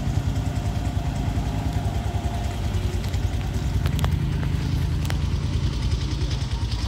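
Vehicle engine running at low revs with a steady low throb, with a few sharp clicks about four and five seconds in.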